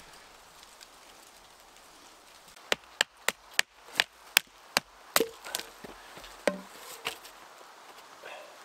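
A quick run of sharp knocks, like wood being struck, about a dozen in a little over two seconds, then a few scattered ones.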